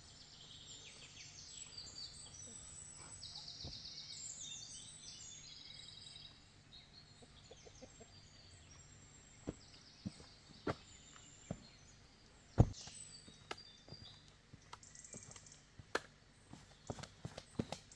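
Small birds singing in quick trilled phrases for the first six seconds or so. Then scattered sharp taps or knocks, one much louder about two-thirds in, coming faster and closer together near the end.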